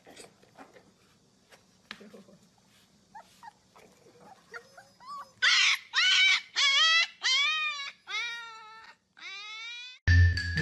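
A dog whimpering in a series of about six high, loud cries, each bending up and then down in pitch. They follow a few seconds of faint small clicks.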